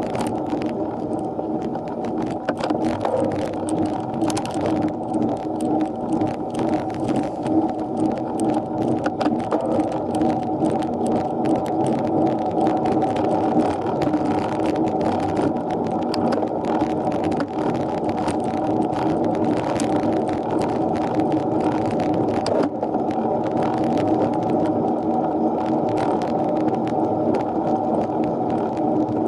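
Steady, muffled riding noise from a bicycle on a climb, picked up by an action camera's microphone, with scattered small clicks throughout.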